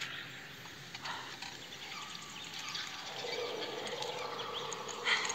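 Film forest ambience: scattered bird chirps over an even background, with a steady hum that comes in about three seconds in and a brief sharp noise near the end.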